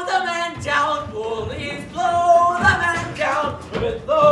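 A group of voices singing together without accompaniment, with long held notes.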